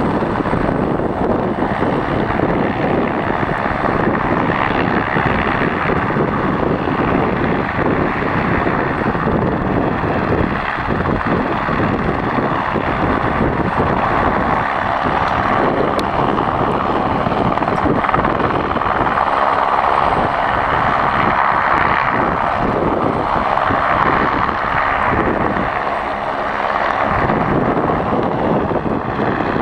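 Light helicopter running on the ground with its main rotor turning: a loud, steady engine and rotor noise.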